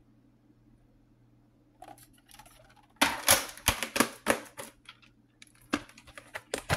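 Sharp plastic clicks and clacks of a VHS cassette and its clamshell case being handled and closed. A dense cluster starts about three seconds in, and a few more come near the end.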